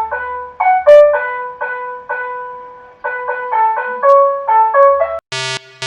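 A melodic multi-tone horn playing a quick tune in short, brassy notes, with one longer held note in the middle. Near the end a different tone takes over, beeping evenly about twice a second.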